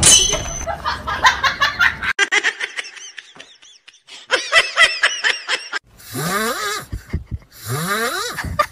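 A person laughing: a run of quick short laughs, then higher-pitched giggling, and near the end two long rising squealing sounds.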